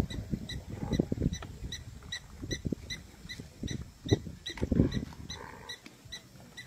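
Irregular animal noises, short low grunts or growls, over a faint high ticking about four times a second.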